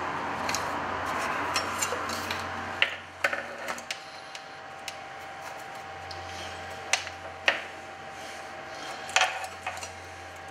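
A plasma TV power-supply circuit board being handled on a workbench: rubbing and scraping for about the first three seconds, then scattered sharp knocks and clicks as it is turned over and laid down, over a steady low hum.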